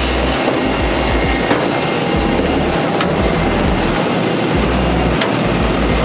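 Steady, loud rushing noise of jet aircraft on the apron, with wind gusting on the microphone in low rumbles that come and go.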